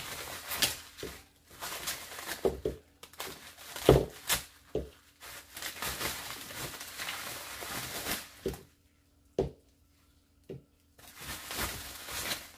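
Bubble wrap crinkling as small plastic gel polish bottles are unwrapped from it, with a few light knocks as the bottles are set down on a table.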